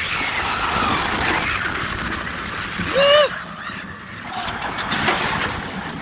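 Rushing wind and track rumble on board a moving roller coaster, heard from the rider's seat, with one short, loud shout from a rider about three seconds in.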